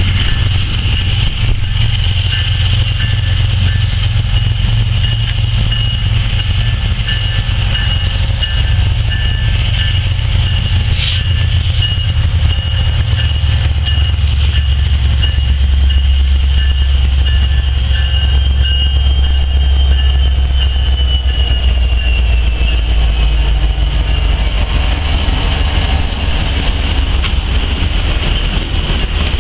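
Norfolk Southern coal train passing close, led by an EMD SD70ACe and a GE ES44AC diesel-electric locomotive. Their deep engine rumble grows loudest as the locomotives go by around the middle, then gives way to the rolling of the coal hoppers. A thin high whine sits over it and slides down in pitch about two-thirds of the way through.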